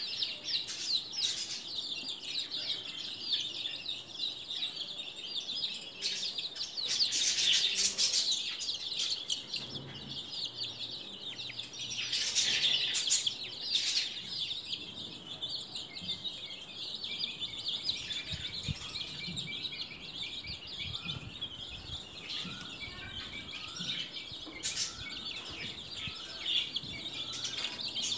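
A flock of two-week-old domestic chicks peeping constantly, many thin high peeps overlapping, swelling louder twice in the first half.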